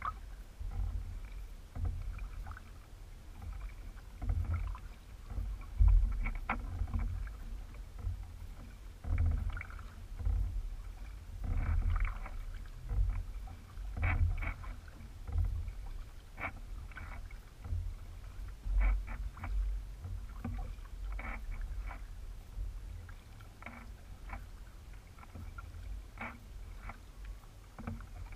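Kayak paddling: a double-bladed paddle dips into calm water on alternate sides, with a splash and drip every second or two, over a low rumbling on the microphone.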